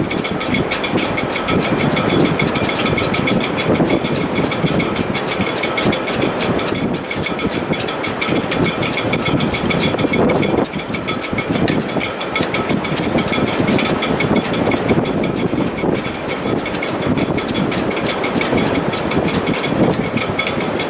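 Sailboat shrouds and rigging vibrating in strong wind: a steady, rapid buzzing flutter with a few held tones, over a dense rush of wind.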